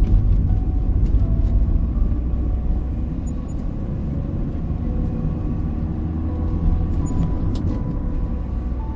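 Steady low rumble of a moving car, its engine and road noise running evenly, with a soft melody of long held notes faint above it.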